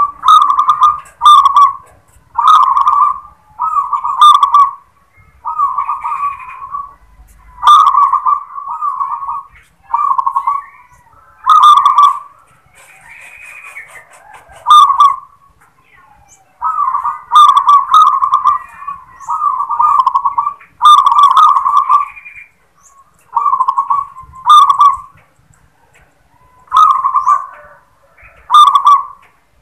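A local zebra dove (perkutut) sings its 'klar ketek kuk' song in its cage, repeating short, loud cooing phrases every second or so. Many phrases open with a sharp note, and there are brief pauses about halfway through and again near the end.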